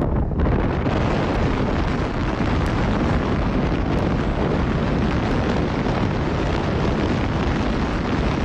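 Loud, steady rushing car noise, engine and exhaust close to the microphone, with no clear pitch.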